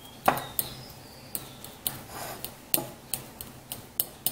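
A fork mashing crumbled hard-boiled egg yolks in a ceramic bowl: irregular clicks and light scrapes as the tines knock against the bowl.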